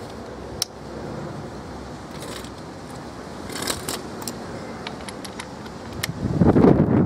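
A few light metallic clicks from the tools being handled, then about six seconds in a Mondis 24-volt cordless 1/2-inch impact driver starts up and runs loudly.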